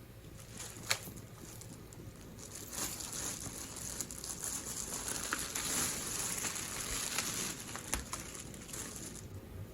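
Plastic packaging rustling and crinkling as it is handled, after a single sharp click about a second in. The rustling comes in about three seconds in and fades out near the end.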